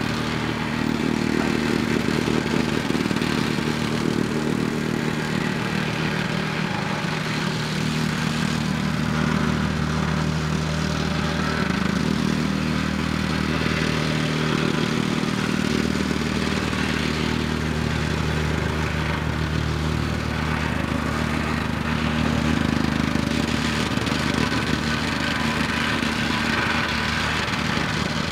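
Komatsu PC240LC excavator's diesel engine running continuously under working load, its low note shifting a few times as the hydraulics take up and drop load.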